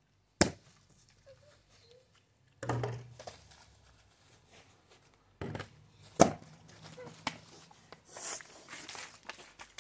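A few sharp knocks of a plastic bottle hitting hard ground: one about half a second in, then two close together around five and a half and six seconds in, the last the loudest.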